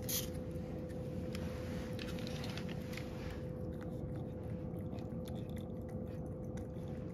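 A cat eating wet cat food from a ceramic bowl: irregular wet chewing with small clicks and tongue smacks. A steady faint hum runs underneath.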